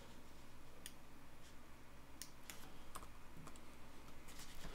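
Faint, scattered clicks from working a computer, about half a dozen at uneven intervals, over a low steady hiss.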